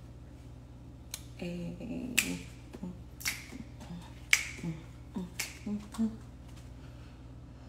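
A series of sharp snaps, about one a second, five in all, with fainter low short notes between them.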